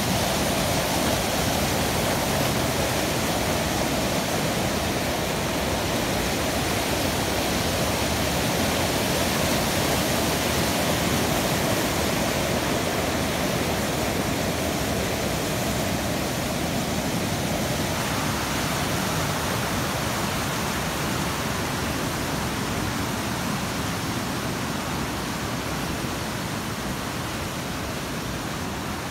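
Rushing mountain water: a steady, even roar of a creek or falls, easing slightly toward the end.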